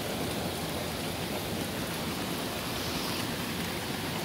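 Steady rain falling on the yard and the house, a constant even hiss.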